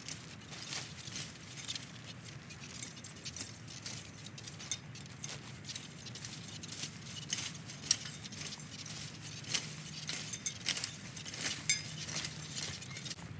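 Crackling and rustling of dry garden plant material being pulled up and cleared by hand, with many irregular sharp snaps that come thicker in the second half, over a faint steady low hum.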